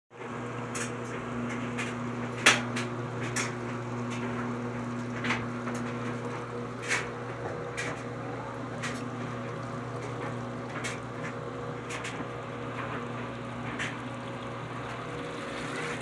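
Washing machine draining: the drain pump hums steadily while water gushes from the drain hose into a utility sink. A few sharp clicks or splashes cut through, the loudest about two and a half seconds in.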